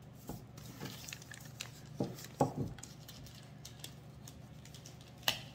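Items being handled and unwrapped from a newspaper-packed cardboard box: soft paper rustling with a few light knocks, the sharpest one near the end.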